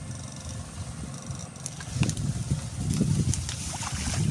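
Tall grass rustling and crunching as an electrofishing pole is pushed and worked through a weedy ditch, with a few sharp knocks. The handling noise builds about two seconds in and stays strongest near the end.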